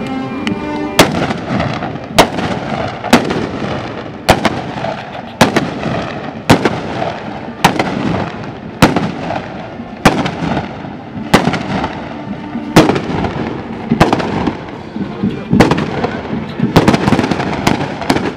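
Black-powder blunderbusses fired one after another in a running volley, a sharp bang about once a second, each trailing off in echo. Near the end several shots come in quick succession.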